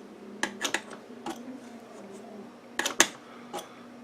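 Adjustable wrench clicking and clinking against small nuts of SMA connectors while they are loosened, in a few scattered sharp metallic taps. The loudest pair comes about three seconds in, over a faint steady hum.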